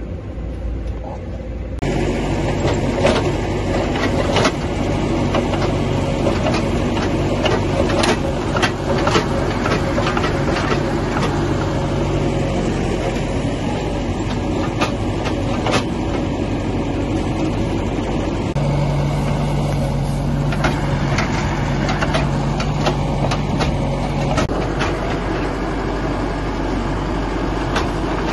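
Farm tractor's diesel engine running steadily as its front-end loader lifts and dumps old hay bedding, with scattered clanks and knocks. The engine note rises about two-thirds of the way through and holds for several seconds before settling back.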